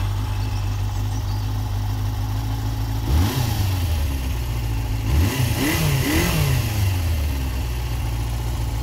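Suzuki GS250FW motorcycle engine idling steadily, blipped on the throttle a few times between about three and six seconds in, each rev falling back to idle.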